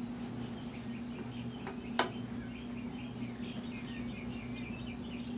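Small birds chirping in quick repeated notes in the background, over a steady low hum, with one sharp click about two seconds in.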